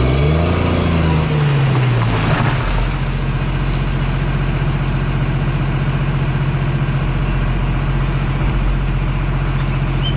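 Crawler dozer's diesel engine working hard as the blade pushes over a tree: the engine note rises and then sags under load in the first two seconds, a brief crash comes a little after two seconds in, and the engine then runs on steadily.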